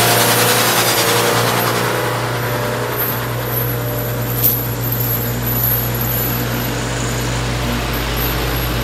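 Truck engine running steadily under a broad road-noise haze, with a single short click about halfway through.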